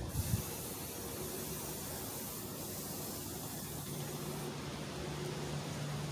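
Aerosol spray paint can hissing steadily as the nozzle is held down over a table top, then cutting off about four and a half seconds in.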